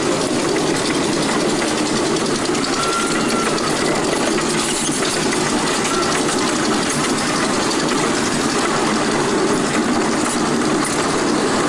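Miniature ride-on train running steadily, a continuous rumble of the train and its cars moving along the track.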